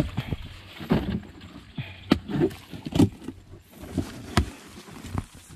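A run of irregular knocks and thumps as food and tableware are handled and set down.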